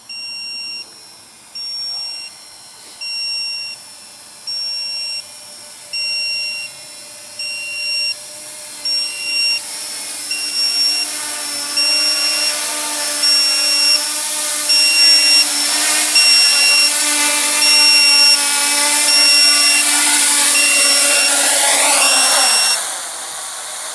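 Quadcopter electric motors and 9x5 three-blade propellers whirring, growing louder through the second half, then winding down near the end as it lands and the props stop. A high electronic beep repeats steadily throughout.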